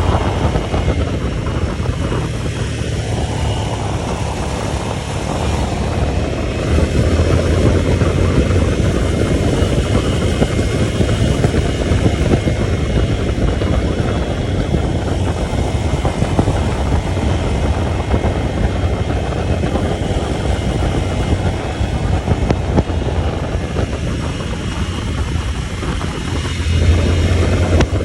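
A vehicle underway on a rough, unpaved ride: a steady engine and road rumble, with the low rumble swelling now and then.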